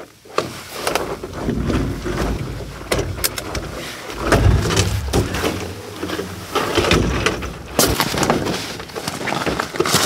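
A folding camp cot being set up by hand: its fabric rustling and scraping, the leg frames clicking and knocking into place, and dull thumps as it is pressed down, with several sharp clicks along the way.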